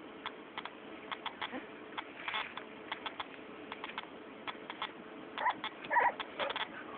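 Cocker spaniel puppies about three and a half weeks old playing, with scattered small clicks throughout. Near the end come a few short high squeaks or whimpers from the puppies.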